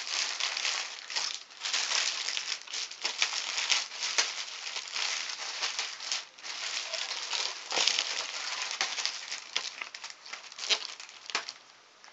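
Packaging crinkling and rustling as it is handled, with many scattered clicks and small knocks; it quiets near the end.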